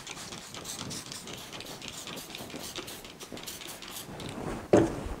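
Cloth rubbing over a whiteboard in quick, repeated wiping strokes. A single loud thump sounds near the end.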